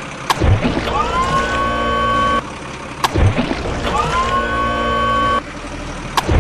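Looped heavy-vehicle engine sound effect: a running engine with a whine that rises and then holds before cutting off abruptly, followed by a sharp click and a falling whoosh, the cycle repeating about every three seconds.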